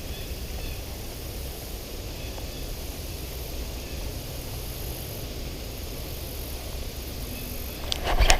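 Steady low rumbling background noise. Near the end comes a sudden burst of sharp splashing and clatter as a bass strikes the topwater frog.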